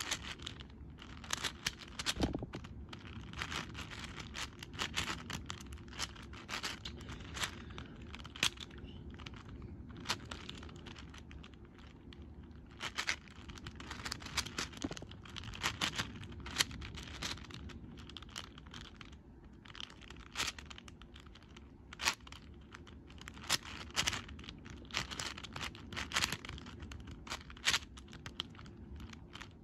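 Plastic layers of an X-Man Shadow V1 M 6x6x6 speedcube being turned rapidly in a speedsolve: an irregular run of clacks and scraping clicks, several a second, some sharply louder than the rest.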